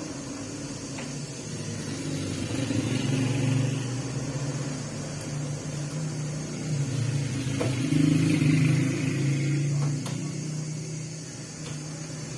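Low mechanical hum of a running motor that swells louder twice, with a few faint clicks.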